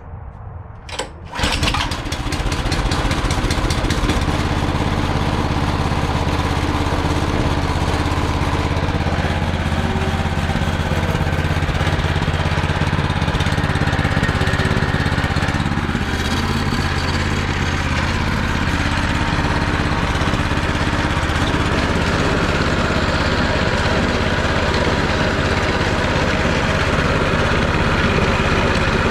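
Predator 212cc single-cylinder four-stroke engine, newly fitted to an old Ariens snowblower, pull-started by its recoil starter for its first start; it catches about a second in and then runs steadily.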